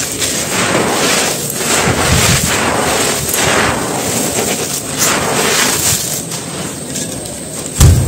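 Dry, gritty red dirt crumbled and scooped by bare hands: continuous crunching and scraping of grit and crumbs, with a heavy low thud just before the end.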